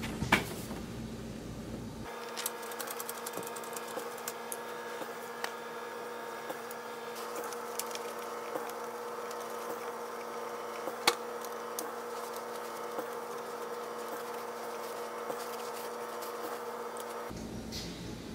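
A steady mechanical hum made of several fixed tones, with a few sharp clicks and light taps of metal hardware on the pinewood frame during furniture assembly. The loudest clicks come just after the start and again about 11 seconds in.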